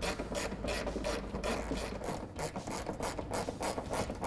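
Hand ratchet with an 8mm socket tightening a bolt, its pawl clicking in an even run of about three clicks a second.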